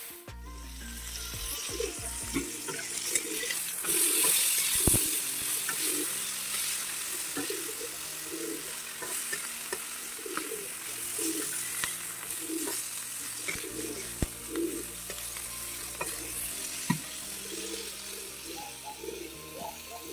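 Dried fish (shutki) frying in hot oil in a metal karahi, sizzling steadily, with a metal spatula scraping and clicking against the pan as the pieces are stirred.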